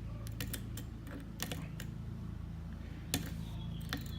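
Scattered small metallic clicks of a freshly cut tubular key being fitted into a tubular (ace) lock and tried, with one sharper click about three seconds in. A low steady hum runs underneath.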